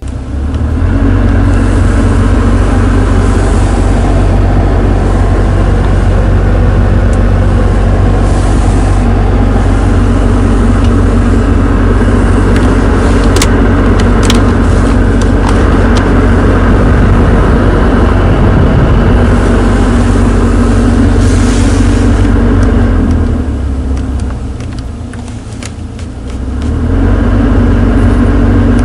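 BMW F07/F10/F11 heater blower fan running at high speed: a loud rush of air over a strong low drone, the noise and vibration of a faulty blower motor at higher fan speeds. About three-quarters of the way through it dies down for a few seconds, then comes back up.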